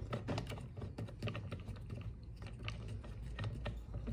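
Irregular light clicks and taps of hands working at a small two-stroke trimmer engine, unscrewing the piston stop from the spark plug hole.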